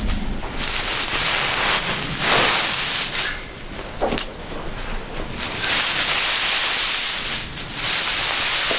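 Dry hay of a round bale rustling and crackling, brushed right against the microphone, in uneven swells.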